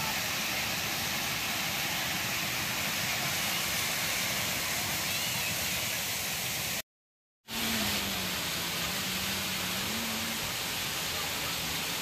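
Water rushing steadily over a low, man-made check-dam cascade. The sound cuts out for a moment about seven seconds in, and a faint voice sits under the rushing for a few seconds after that.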